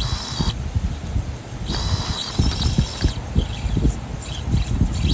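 Axial AX24 RC crawler driving in a hole in rough ground: its brushless motor whines in short bursts of throttle while the rig knocks and thumps irregularly over the dirt.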